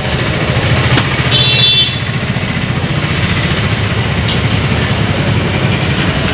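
Motor vehicle engine running steadily amid street traffic noise. A brief high-pitched tone comes about a second and a half in.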